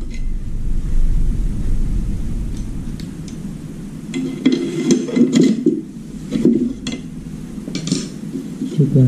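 Irregular clusters of knocks and clinks from small hard objects being handled and set down, with a low handling rumble in the first few seconds.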